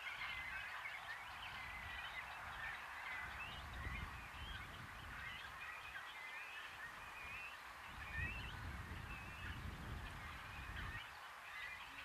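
Many birds calling and chirping in a steady chorus over open meadow ambience. A low rumble comes and goes beneath it, strongest about four seconds in and from about eight to eleven seconds.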